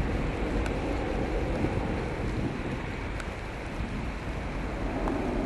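Boeing 737-300's CFM56 jet engines at take-off power, heard from a distance as a steady roar while the airliner climbs away, with wind buffeting the microphone.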